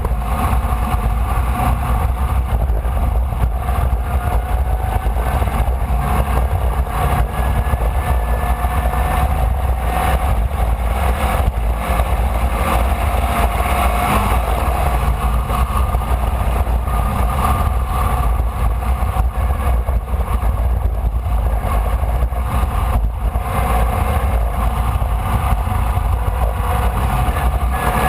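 A Formula Vee's air-cooled Volkswagen flat-four engine heard from on board at racing speed. Its note rises and falls gently as the car is driven, over a constant low rumble, with a few brief dips that may be lifts or gear changes.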